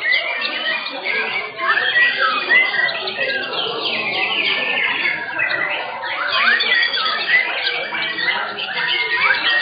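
Several white-rumped shamas singing at once: a dense tangle of overlapping whistled phrases and quick rising and falling chirps with no break.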